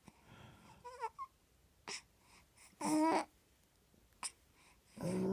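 Newborn baby making two short cooing vocal sounds with a wavering pitch, a faint one about a second in and a louder one about three seconds in. The parent reads her effort as straining, as if to push something out.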